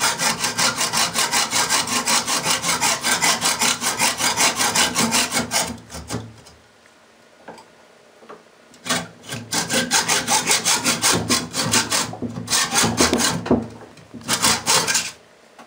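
Hand hacksaw cutting a metal screw clamped in a bench vise, in quick back-and-forth strokes. The sawing stops for about two seconds around six seconds in, then resumes in shorter runs with brief pauses.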